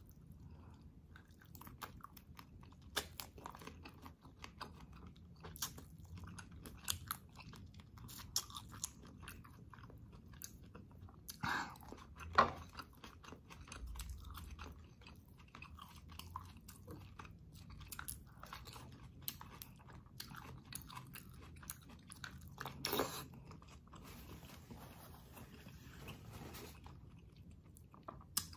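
Close-up chewing of shrimp and catfish, with many small wet clicks and a few louder crunches, the loudest about twelve seconds in and again near twenty-three seconds.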